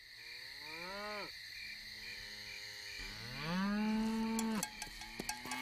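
Hollywoodedge 'Night Ambience Light' stock night ambience: crickets chirping steadily, with long, low calls that rise and then drop in pitch, twice.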